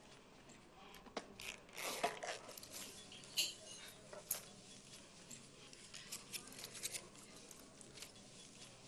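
Faint bar-room ambience with scattered small clicks and knocks and a few brief rustles.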